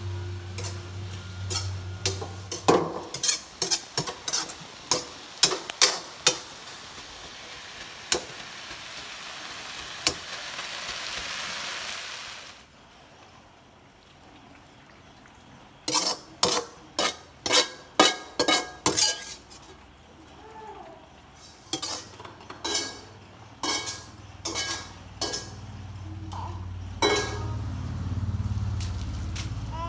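Metal ladle clanking and scraping in a frying pan while food is stir-fried, with a sizzling hiss that grows and then stops about twelve seconds in. After a short lull, a quick run of sharp clinks as the food is scraped from the pan onto a plate, then a few scattered knocks.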